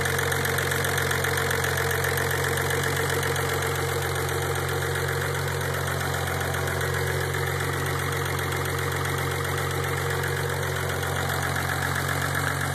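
Car engine idling steadily once warmed up, after five to ten minutes of running, while being checked for an abnormal engine noise.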